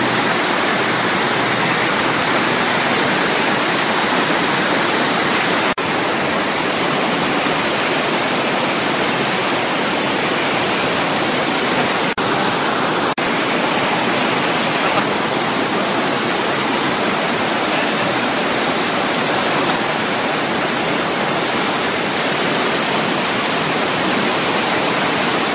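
FlowRider sheet-wave machine: a steady, loud rush of water pumped in a thin, fast sheet up its padded slope.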